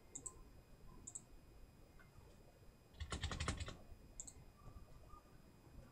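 A quick run of keystrokes on a computer keyboard, about three seconds in, typing a password. A few faint single clicks come before and after it.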